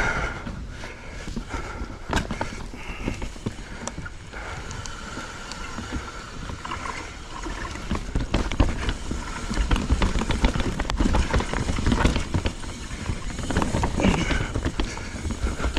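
Knolly mountain bike riding fast down dirt singletrack: tyre rumble over dirt and roots, with frequent sharp knocks and rattles from the bike. The knocks and rattles come thicker and louder in the second half.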